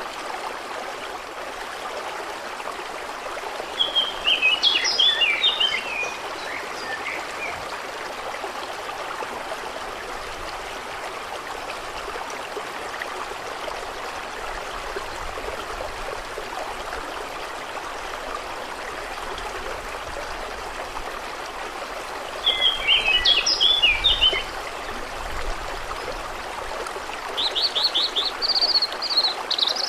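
Steady rush of water, with a songbird singing short warbled phrases twice, about four seconds in and again around twenty-three seconds in, then a fast trill near the end.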